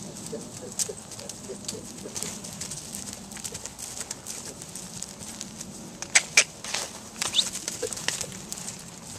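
Hooves of a Welsh pony colt trotting and cantering loose on turf, with scattered short knocks and clicks, two sharp loud ones about six seconds in, and a brief bird call.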